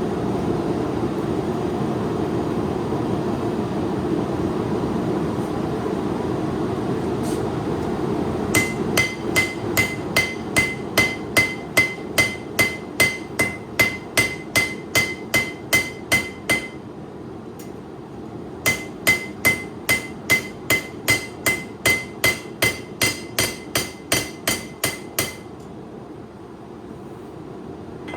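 A hammer striking a steel knife blade on an anvil to straighten it, in two runs of quick ringing blows about three a second with a short pause between. A steady rushing noise runs before the hammering.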